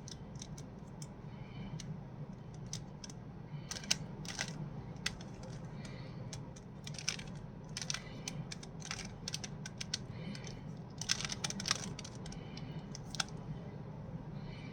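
Rubik's cube being turned by hand, its plastic layers clicking in irregular quick runs of turns, over a steady low hum.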